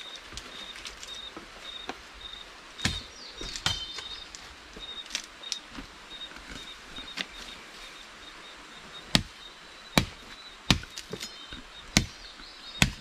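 Machete chopping at wood and brush in irregular sharp strokes, a few at first and then closer together in the second half.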